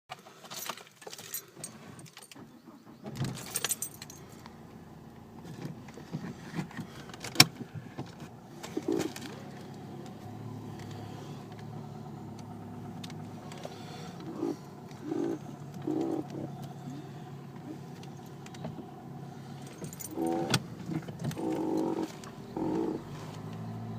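Inside a Nissan Qashqai: keys jangle with a few clicks, then a steady low hum while the steering wheel is turned, giving short repeated rubbing creaks. The creaks are the steering wheel rubbing against the steering column cover, a noise cured with white lithium grease.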